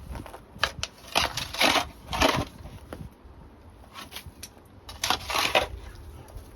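Several irregular crunching, scraping bursts, the loudest about a second and a half to two seconds in and again about five seconds in.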